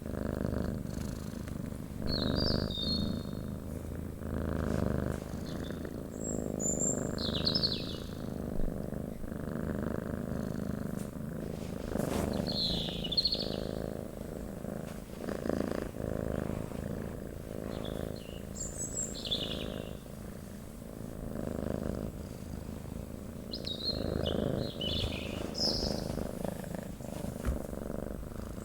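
A domestic cat purring steadily, the purr swelling and easing with each breath, while small birds chirp briefly every few seconds.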